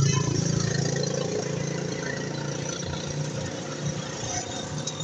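A steady, low engine-like hum over a noisy background, easing off slowly.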